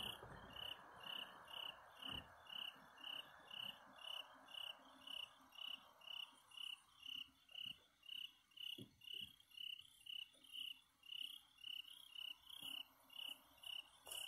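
A cricket chirping in a steady rhythm, about two short chirps a second, over a faint hiss that fades out about halfway through.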